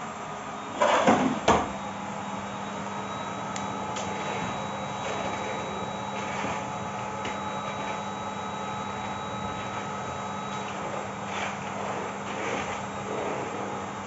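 Bosch BGS21X320 bagless canister vacuum cleaner running steadily with a humming drone while its floor nozzle works a hard floor. About a second in, a short loud clatter of two or three knocks.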